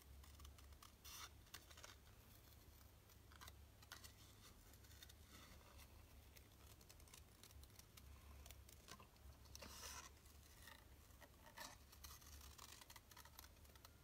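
Faint, scattered snips and paper rustle of small craft scissors (Stampin' Up! paper snips) cutting around a heat-embossed cardstock banner, with a low steady hum underneath.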